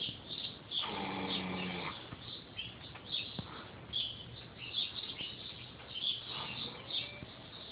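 A sleeping pet snoring: one long, pitched snore about a second in. Small birds chirp throughout.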